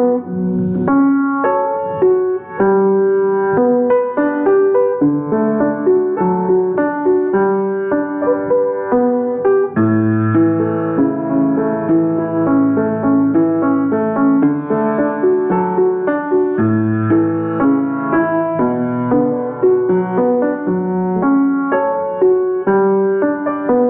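Background piano music: a steady, unbroken flow of gently struck notes.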